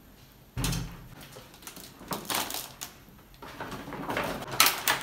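Groceries being unpacked by hand: a thump of an item set down about half a second in, then bursts of rustling and crinkling packaging and shopping bags.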